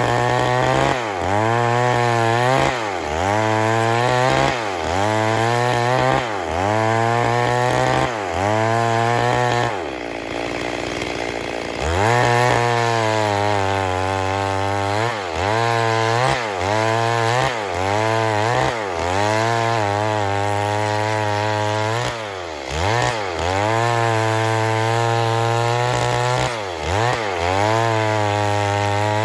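Stihl MS 382 two-stroke chainsaw running at high revs as it works through wood, its engine note dipping and recovering about once a second under the load. Around a third of the way through, it settles briefly to a lower, steadier note, then picks up again.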